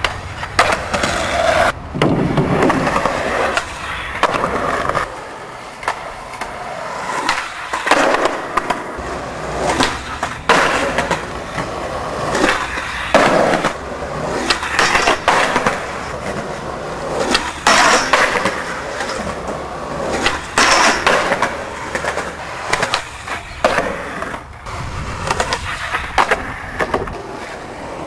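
Skateboard wheels rolling on concrete, broken by repeated sharp cracks of tail pops and landings and the scrape of the board sliding on metal handrails and concrete ledges, over several tricks in a row.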